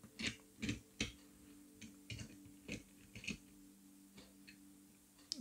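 Light clicks and taps of a 1/64-scale Hot Wheels diecast car being handled and fitted onto a toy truck's flatbed, about eight small knocks spread over a few seconds, with a faint steady hum behind.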